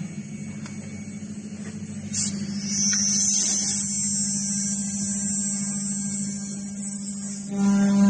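ATC CNC machine running with a steady low hum. About two to three seconds in, a loud high-pitched whine sets in and holds until shortly before the end, when it stops and the hum grows stronger.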